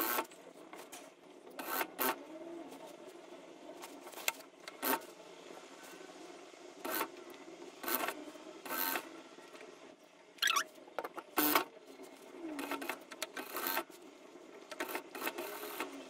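Fabric rustling and rubbing as hands shift and smooth herringbone cloth and its lining on a sewing machine bed, in irregular short swishes.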